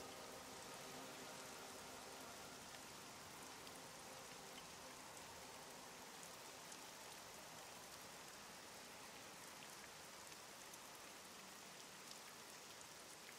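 Near silence: a faint, steady hiss of room tone, with faint tones fading out just at the start.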